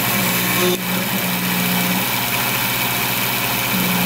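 Taig CNC mini mill's spindle running with a diamond-cut router bit milling carbon fiber plate: a steady high hiss and whine with a low hum underneath. The hum drops out for about two seconds midway.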